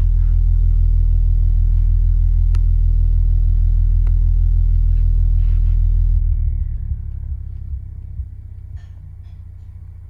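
AVE Revo 15 powered speaker's 15-inch woofer playing a loud, steady deep bass test tone from a frequency sweep. About six seconds in it steps down to a lower, quieter tone. A couple of faint clicks come through early on.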